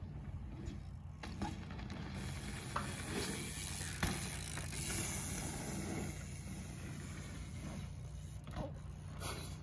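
Mountain bike riding over dirt jumps: tyres rolling and scrubbing on packed dirt, the rear hub's freewheel ticking as the rider coasts, and a few scattered knocks from the bike landing and rattling.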